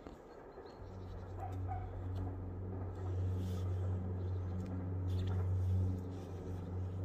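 A heavy engine starts a low, steady drone about a second in and grows louder, then holds.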